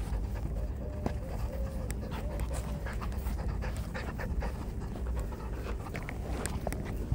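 Beagle puppy panting while it tugs at a sandal, with short scuffs and clicks from the sandal straps and handling over a low rumble.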